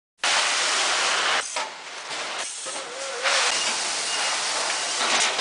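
Steady hissing rush of machinery noise from a 25 to 50 kg bagging system with two weighing scales at work. It starts abruptly and dips briefly twice, about a second and a half and two and a half seconds in.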